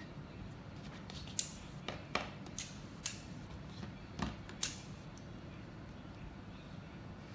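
About seven small, sharp clicks of the metal and magnetic pieces of a Polar magnetic fidget pen being handled and snapped together. They start about a second and a half in and stop a little past the middle.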